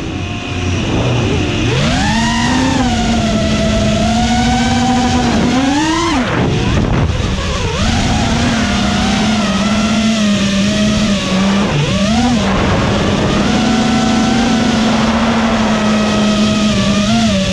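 FPV racing quadcopter's motors and propellers whining as heard from the onboard camera. The pitch swoops up and drops back several times as the throttle is punched and eased, and holds a steady hum in between.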